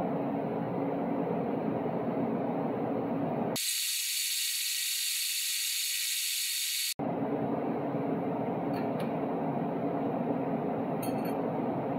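Steady workshop hum. About three and a half seconds in, it gives way to a steady high hiss from welding on a cross-threaded exhaust bolt in a large diesel cylinder head; the hiss stops abruptly about three seconds later. A few faint clicks follow near the end.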